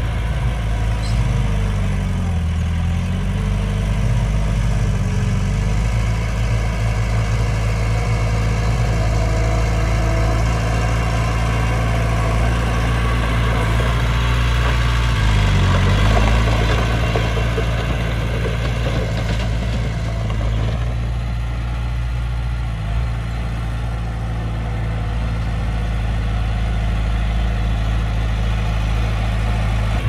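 Heavy diesel engine of earthmoving machinery running steadily, its pitch dipping and recovering twice, about two seconds in and again about fifteen seconds in.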